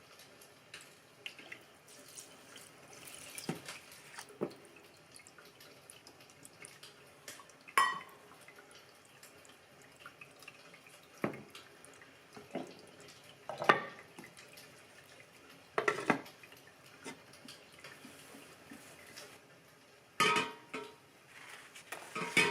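Kitchen work sounds: scattered clinks and knocks of dishes, pots and utensils, with some water from a tap or sink.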